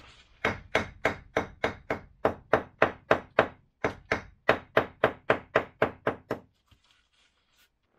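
A small hammer tapping a refractory firebrick into place: quick, even knocks, about three to four a second, with a short break midway, stopping a little after two-thirds through.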